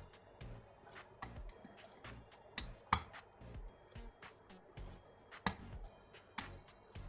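A lock pick working the pins of a six-pin Yale pin-tumbler cylinder: irregular small metallic clicks and scrapes as pins are lifted and set. The sharpest clicks come about two and a half and three seconds in, and again near five and a half and six and a half seconds.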